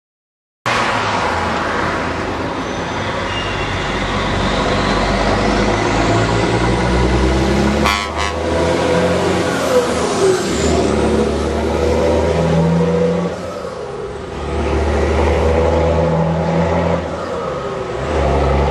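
DAF 95 XF truck's straight-six diesel with an open-pipe exhaust driving by under power, loud and hard, easing off and picking up again twice in the second half. A short sharp click about eight seconds in.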